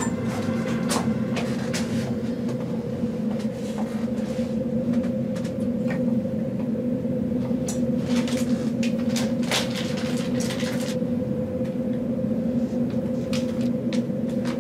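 A steady low drone runs throughout, with scattered light clicks and rustles from a hairbrush and a plastic bag being handled, thickest about eight to eleven seconds in.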